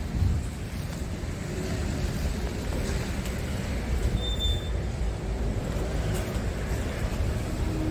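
Low, uneven rumble of wind buffeting the microphone, with one brief high tone about four seconds in.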